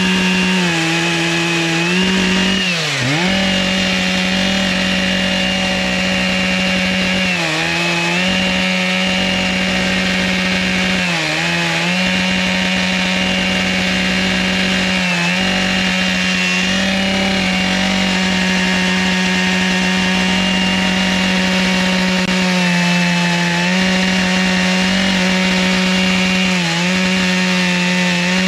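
Chainsaw on an Alaskan chainsaw mill held at full throttle, ripping lengthwise through a butternut log. The engine runs at a steady pitch and sags briefly about six times as the load on the chain changes.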